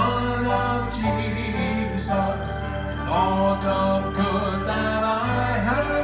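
A man singing a gospel song into a microphone over instrumental accompaniment with a steady bass line.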